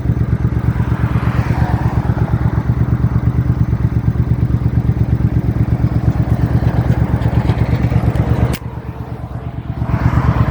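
Engine of an open vehicle running under way, its fast, even low pulsing steady, with wind buffeting the phone's microphone. A sharp click about eight and a half seconds in, after which the engine drops quieter, then picks up again near the end.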